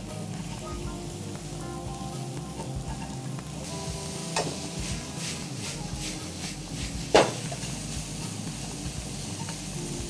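Thinly sliced pork belly and onion sizzling steadily as they are stir-fried with chopsticks in a frying pan over a gas flame. Two sharp clacks, about four and seven seconds in, the second louder.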